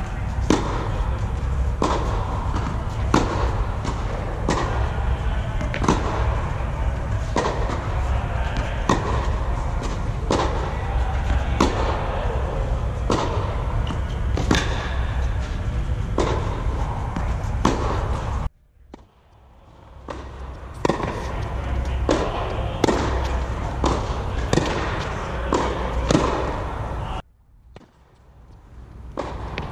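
Tennis rally: a ball struck by rackets and bouncing on a hard court, sharp pops about once a second, over a steady low rumble. The sound cuts out briefly twice, about two-thirds of the way through and near the end.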